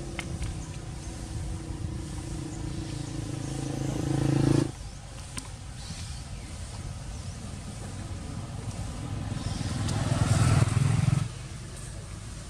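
A vehicle engine running with a steady hum, growing louder as it approaches, then cutting off abruptly a little over four seconds in. A second engine sound swells later and cuts off suddenly about a second before the end.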